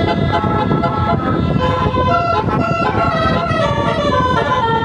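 A tour bus's Basuri telolet horn, a multi-tone musical air horn, playing a melody: short held notes, often several at once, that change pitch every fraction of a second, over a steady low rumble.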